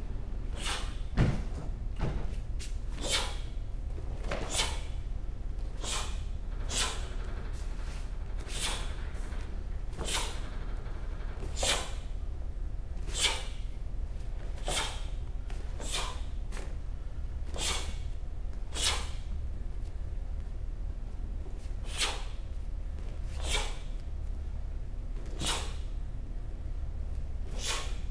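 Sharp snaps and slaps from the strikes, blocks and stances of a taekwondo pattern, one about every second to second and a half, the loudest and heaviest about a second in.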